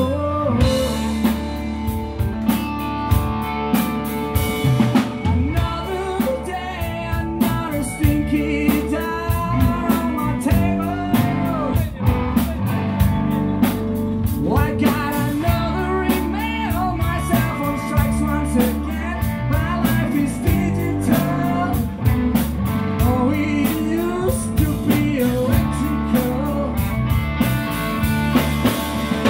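Live rock band playing: drum kit, electric guitar and bass guitar, with a male singer's vocals.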